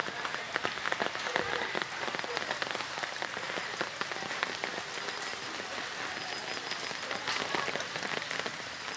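Heavy rain falling, with many separate drops striking close by.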